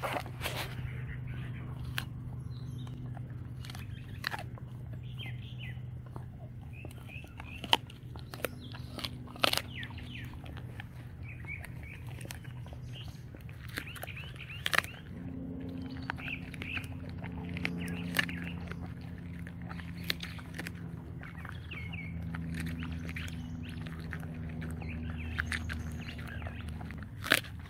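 An Alaskan malamute crunching a raw chicken foot, its bones cracking in sharp, irregular snaps. Birds chirp now and then, over a steady low hum.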